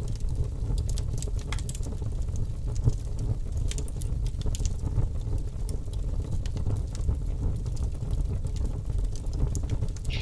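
A steady low rumble with scattered light crackles and ticks, part of a constructed ambient soundscape laid over the pictures.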